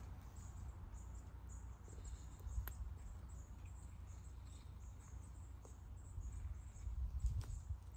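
Faint scratching of a small hand trowel stirring loose soil mix in a raised bed, with soft irregular scrapes and a single sharper click about a third of the way in, over a low rumble.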